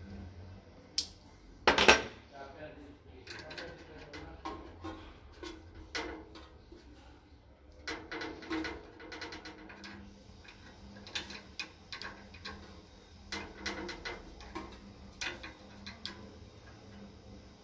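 Socket wrench clicking and clinking against the metal of a butane water heater's pilot burner while the pilot injector is loosened for cleaning: a string of short metallic clicks, some in quick runs, with the loudest knock about two seconds in.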